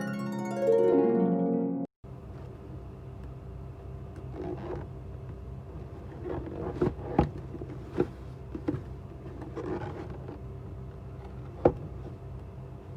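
A plucked, harp-like music cue that cuts off about two seconds in, followed by a steady low hum with scattered taps, clicks and rustles of a shoebox and its packing being handled during an unboxing.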